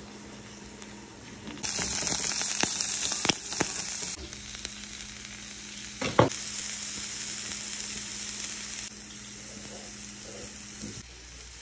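Corn, zucchini and green beans sizzling in oil in a nonstick frying pan, with a few sharp knocks, the loudest about six seconds in. The sizzle gets louder about two seconds in and drops back near nine seconds.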